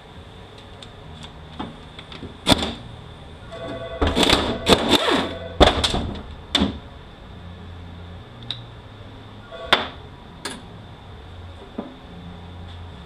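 Air ratchet running in a burst of about a second and a half, starting about four seconds in, backing out a 10 mm bolt on a transmission speed sensor. Around it are sharp metal clanks and light clicks from the tool, bolt and sensor.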